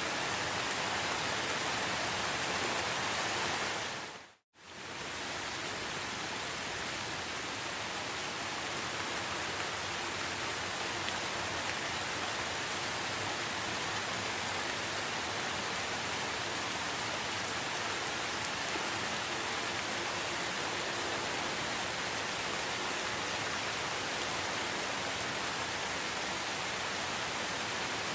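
Steady rainforest rain: a dense, even hiss of rainfall. About four seconds in it briefly fades out to silence and comes straight back.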